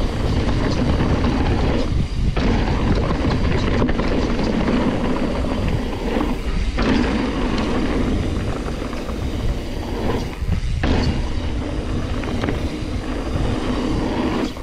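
Mountain bike ridden fast down a dirt trail, with wind buffeting the microphone over the rolling tyres and rattling bike. The noise eases briefly three times.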